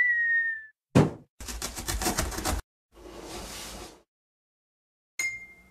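Cartoon-intro sound effects in sequence: a short, slightly falling whistle, a sharp thump about a second in, a rapid rattle lasting about a second, a soft whoosh, then a bright ding near the end.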